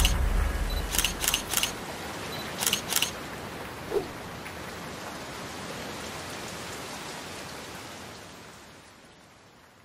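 A steady hiss that slowly fades out over the last two seconds. A few sharp clicks sound in the first three seconds, and a single soft knock about four seconds in.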